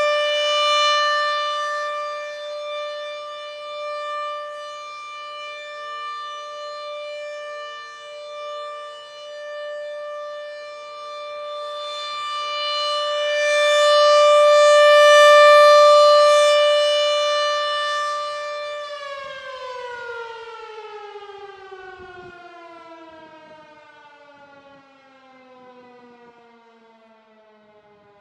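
Rotating electromechanical outdoor warning siren sounding a steady tone that swells and fades as the horn turns. About two-thirds through it winds down, the pitch falling steadily as the sound dies away.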